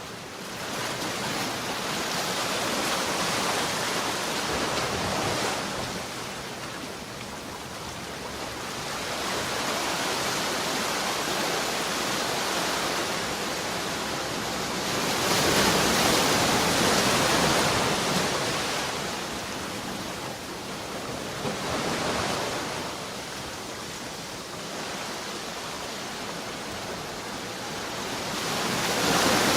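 Ocean surf: waves breaking and washing in, the rushing hiss swelling and fading in slow surges every several seconds, loudest about halfway through.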